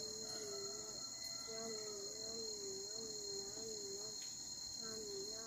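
Crickets chirring in a steady, high-pitched drone. A fainter wavering tone comes and goes beneath it in stretches of about a second.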